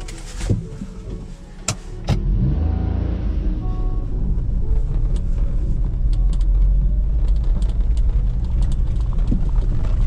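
A couple of sharp clicks as the seat belt is pulled across and buckled, then about two seconds in the van's engine revs up as it pulls away. It goes on with a steady low rumble of engine and tyres on a rough dirt track.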